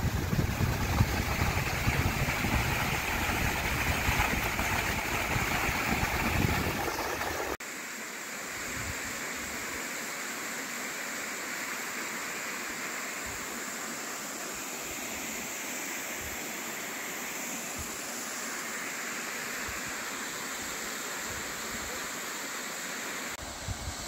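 Steady rush of a waterfall. For the first several seconds wind buffets the microphone with a low rumble. After an abrupt cut, the water is an even, quieter rush.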